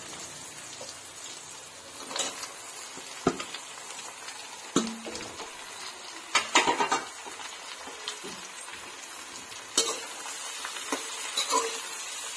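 Hot oil sizzling in an aluminium kadhai as sliced tori (ridge gourd) is added to frying onion and radish. A slotted metal spoon scrapes and clacks against the pan now and then as the vegetables are stirred.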